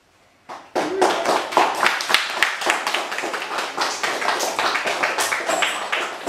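A group of children applauding with hand claps, which begin about half a second in and run on in a dense, irregular patter.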